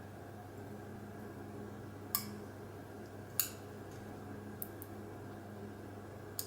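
Small metal lock parts and tools clicking against each other as they are handled: two sharp clicks about two and three and a half seconds in, then a few faint ticks, over a steady low hum.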